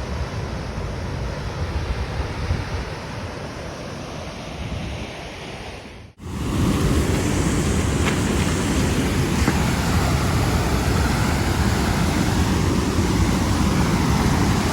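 Steady rushing of wind and falling water, with wind buffeting the microphone. It cuts out for an instant about six seconds in, then comes back louder.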